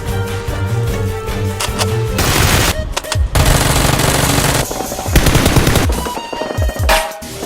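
Background music, then from about two seconds in, rapid bursts of machine-gun fire over it.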